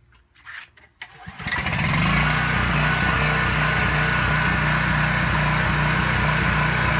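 Coleman Powermate 3500 W open-frame generator's Subaru single-cylinder engine being pull-started. After a brief noise from the starter pull, the engine catches about a second in and within a second settles into a loud, steady unloaded run.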